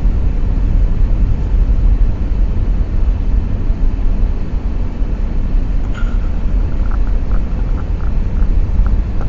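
Steady low rumble of a car driving on a snow- and ice-covered road, heard from inside the car, with a few faint ticks in the second half.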